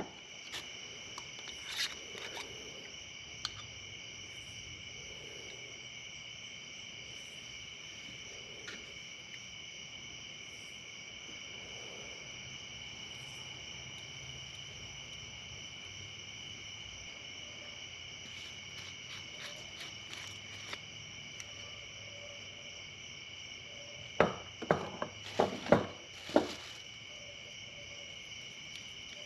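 Steady high chorus of night insects, several pitches trilling at once. Near the end, a quick cluster of sharp knocks and clicks from cans and PVC pipe being handled.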